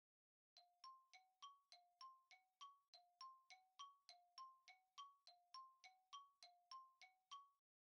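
Faint, steady pattern of short bell-like mallet notes, a lower and a higher note alternating about three and a half times a second: a ticking timer jingle that counts down the time to answer a quiz question.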